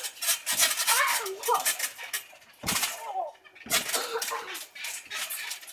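Children bouncing on a garden trampoline: heavy thuds of landings on the mat about half a second, two and a half and three and a half seconds in, with the metal springs rattling and short children's cries and voices.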